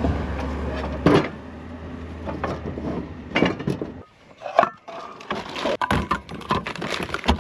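Camp cookware and utensils knocking and clattering as they are handled and packed into a plastic storage tote: wooden spoons, a frying pan and an enamel mug set into a bowl, in a string of separate sharp knocks.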